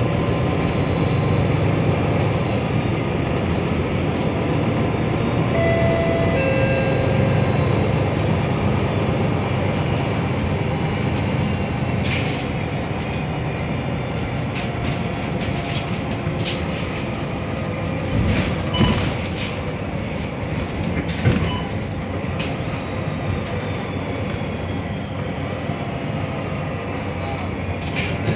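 MAN NL323F diesel single-deck bus on the move: a steady engine and road rumble, with a few brief squeaks about a quarter of the way in, clicks and rattles through the middle, and two short knocks a little past the middle.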